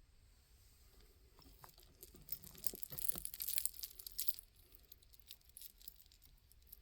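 Beads clicking and jingling together as they are handled, in a quick flurry for a couple of seconds, then a few scattered single clicks.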